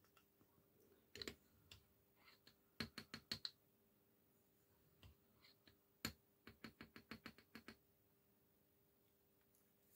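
Light plastic-and-brass clicks and taps as a small plastic funnel and a brass tube are handled against a plastic loading block while paper cartridges are filled. There is a short cluster about a second in, four sharp clicks around three seconds, one loud click just past the middle, then a quick run of about ten clicks.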